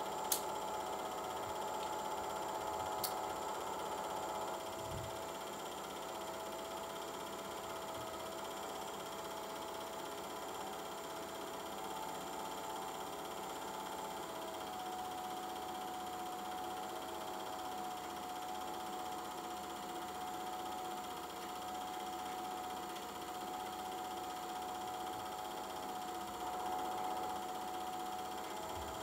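Steady motor hum with a whining tone that wavers and shifts slightly in pitch about halfway through, and a sharp click just after the start.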